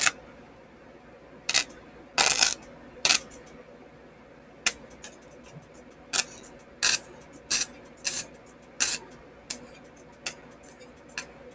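Electric sparks snapping as the tip of the positive lead from a 30-volt capacitor-discharge welder is touched again and again to a grounded steel chassis, each contact discharging the capacitor in a short arc that pits and scorches the metal instead of welding it. About a dozen sharp cracks at irregular intervals, one a longer crackle about two seconds in.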